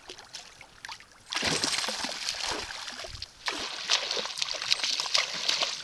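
A hooked northern pike thrashing and splashing at the water's surface. The splashing starts about a second and a half in and goes on with many sharp slaps, getting heavier about halfway through.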